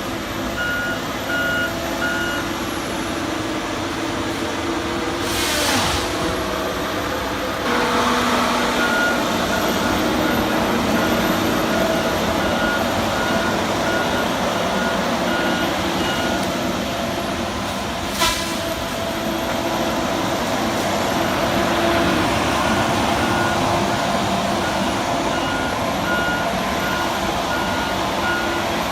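Heavy machinery engine running steadily while a reversing alarm beeps in evenly spaced pulses, in three stretches. The machine sound changes suddenly twice.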